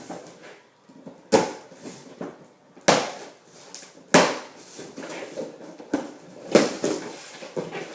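A cardboard bike box being cut and torn open: about five sharp rips through cardboard and tape, with handling rustle between them.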